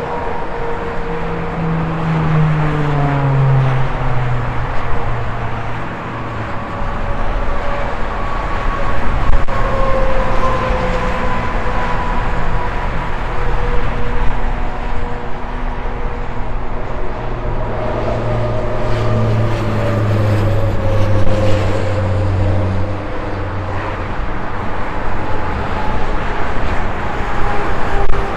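Highway traffic: a continuous rush of tyre noise with trucks and cars passing, their low engine drone falling in pitch as they go by. A heavy engine drone swells between about 18 and 23 seconds in.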